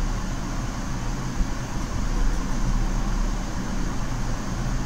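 Steady low background hum with an even hiss.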